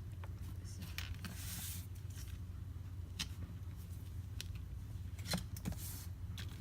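Firm plastic pry tool working along the edge of a cracked iPad Pro screen, breaking the adhesive: scattered sharp ticks and short scratchy scrapes over a steady low hum.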